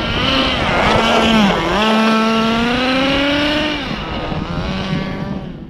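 HSP 1/8-scale nitro short course truck's .21 big-block nitro engine revving as the truck drives. The pitch dips briefly about a second and a half in, climbs again, then falls away near the end.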